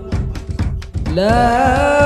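Background music: a song with a singing voice over a steady beat. A held sung note ends at the start, a few drum strikes fill a short gap, and about a second in the voice slides up into a new long note.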